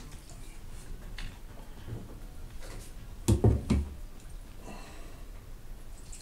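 A few light knocks and clicks, and a louder double thump a little over three seconds in.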